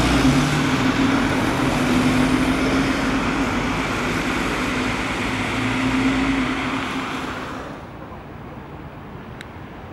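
A heavy vehicle passing close by: a steady hum over a broad rushing noise that fades away about eight seconds in.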